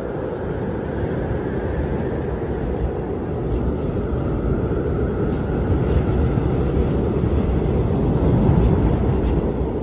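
Wind howling: a steady rush with faint wavering tones and low buffeting, growing a little louder through the second half.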